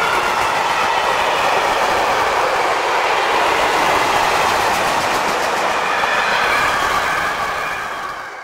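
Freight wagons rolling past at speed, a steady loud rush of wheels on rails with clickety-clack over the joints, fading about seven seconds in as the last wagon passes.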